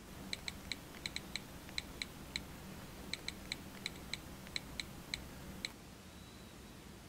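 A typing sound effect: about twenty crisp, clicky keystrokes at an uneven typing pace, stopping a little past halfway.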